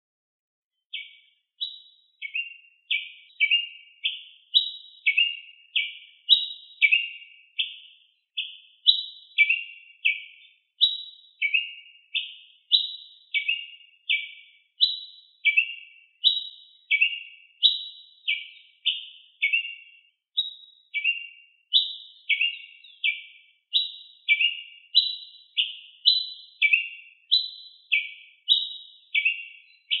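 Ruby-crowned tanager (tiê-preto) singing: short, high chirping notes in quick pairs and triplets, repeated about once a second without pause, starting about a second in.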